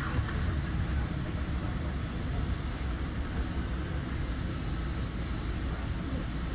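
Steady low rumble of a moving commuter train heard from inside the passenger coach: wheels running on the rails and the car body rolling at speed.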